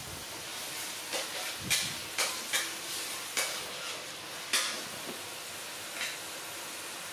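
A run of about eight short scuffs and rustles as a baby monkey in a disposable diaper scrambles and wrestles on top of a puppy on a concrete floor. They come over a steady hiss and stop about a second before the end.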